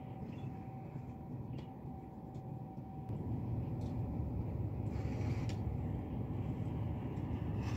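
Low, fluctuating outdoor rumble that grows somewhat louder about three seconds in, with a faint steady hum at first and a few faint clicks.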